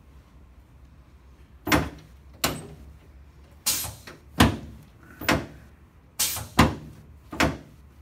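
Sections of a chiropractic drop table snapping down under hand thrusts on the back during an adjustment: eight sharp clacks, about one a second, starting nearly two seconds in.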